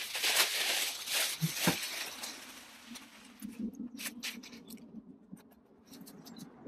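Leafy cut laurel branches rustling loudly as they are handled and dropped onto a pile for about two seconds, then quieter rustles with scattered light clicks and snaps.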